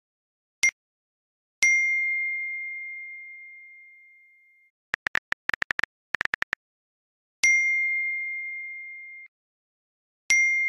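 A bell-like ding heard four times. Each rings out and fades, and some are cut off short. In the middle comes a quick run of about fourteen short beeps at a similar pitch.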